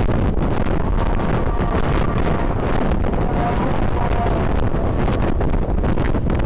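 Steady wind buffeting the microphone of a camera on a Honda Vario 125 scooter riding at speed: a heavy, even rumble with no breaks.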